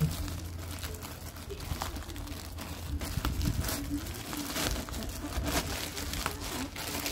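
Thin plastic courier bag crinkling and rustling in irregular crackles as hands pull it open by hand, over a steady low hum.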